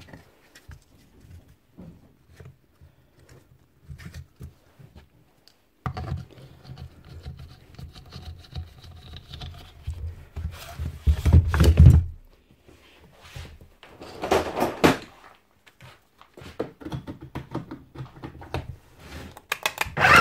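Workbench handling noises as the rotary hammer is put back together: scattered knocks, clicks and clatter of tools and metal parts, with a louder stretch of rubbing and knocking through the middle and a short loud rattle about three quarters through.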